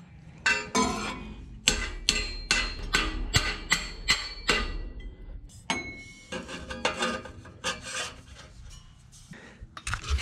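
Metal struck repeatedly with a ringing clang, about two strikes a second for some four seconds, then scraping and clinking of metal parts, as an exhaust hanger is worked into place.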